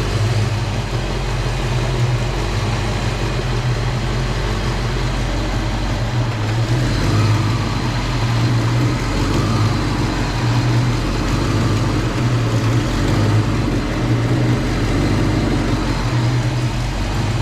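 1989 Ford Mustang's 5.0 L V8 idling unevenly with the A/C on, a low steady engine note that swells and sags irregularly: running like crap.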